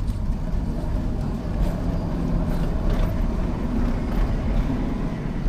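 Steady low rumble of a passing motor vehicle.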